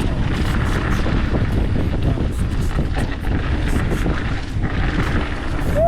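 Mountain bike riding down a dirt trail: a steady rush of wind on the microphone with rattling and ticking from the bike over the ground, and a short squeal near the end.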